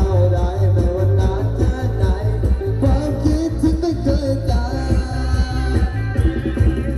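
Loud live Isan rock music from a rot hae sound truck: heavy bass and drums under a wavering lead melody, with some singing.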